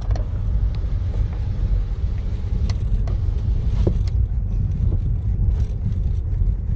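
Steady low engine and road rumble inside a moving Honda car's cabin, with a few faint clicks around the middle.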